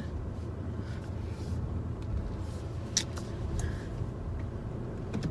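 Car running, heard from inside the cabin as a steady low rumble, with a sharp click about three seconds in.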